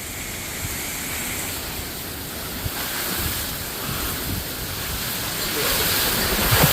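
Strong storm wind gusting, a steady rush that builds louder toward the end, with the wind buffeting the microphone.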